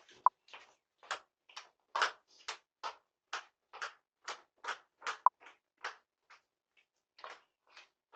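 Footsteps at a steady walking pace, about two a second, picked up by a doorbell camera's microphone and growing fainter toward the end. Two brief sharp ticks, louder than the steps, come near the start and about five seconds in.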